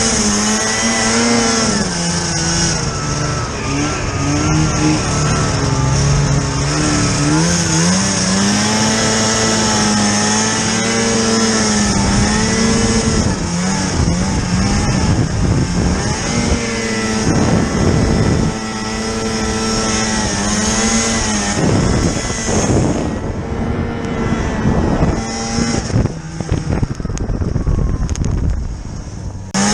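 Snowmobile engine running under load, its pitch rising and falling repeatedly as the throttle is worked. Toward the end it eases off, leaving more rushing noise.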